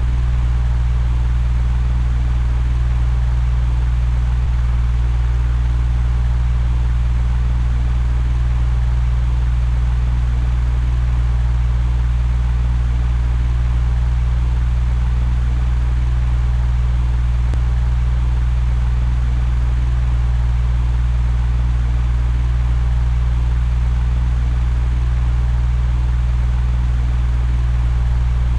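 Electric fan running steadily: a constant low hum under an even rush of air, unchanging throughout.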